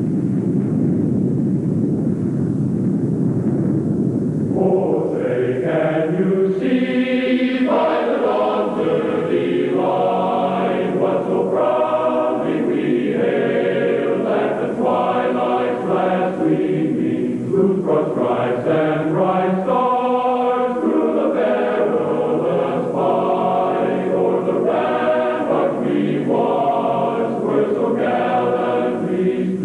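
A low rumbling roar for the first few seconds, then a choir singing a national anthem in held chords that change every second or two.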